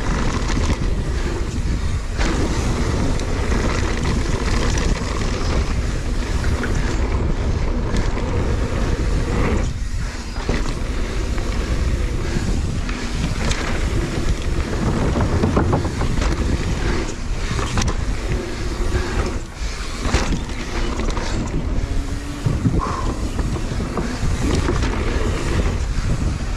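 Wind buffeting a mountain biker's action-camera microphone over the rush of tyres on a dirt trail, with frequent knocks and rattles as the bike runs over bumps at speed.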